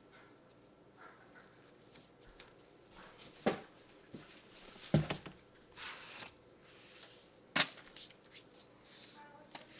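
Handling noises: a few sharp knocks and clicks, the loudest about three and a half, five and seven and a half seconds in, with short rustling or hissing bursts between them.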